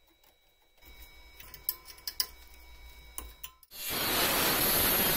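A few faint clicks and taps, then about three and a half seconds in an angle grinder's cutting disc starts cutting steel with a loud, steady grinding noise.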